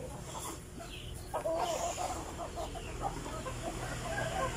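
A flock of chickens clucking while they feed, with many short clucks overlapping. The clucking picks up about a second and a half in.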